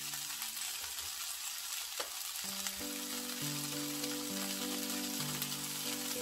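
Seaweed stems and sliced onion sizzling in oil in a nonstick frying pan: a steady hiss of stir-frying.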